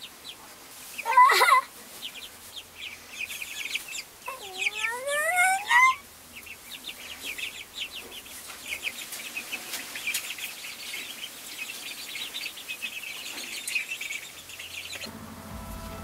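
Ducklings peeping, a rapid string of short high peeps, with two louder, longer cries in the first six seconds, the second one rising in pitch. Music comes in just before the end.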